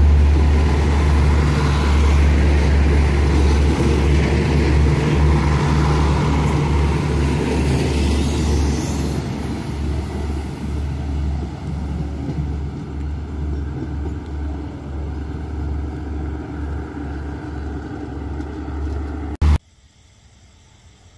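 A passenger train's coaches rumble and clatter along the rails as they roll past and pull away, the sound slowly fading. Near the end it cuts off abruptly with a click, leaving only a faint background.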